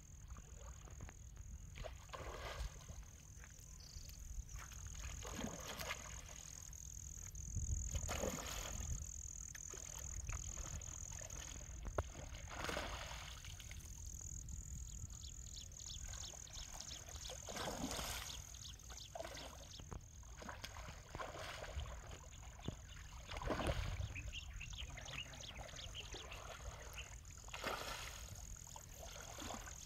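Water splashing in bursts every few seconds as a hooked rohu thrashes at the surface on the line and men wade through shallow river water, over a steady high-pitched whine.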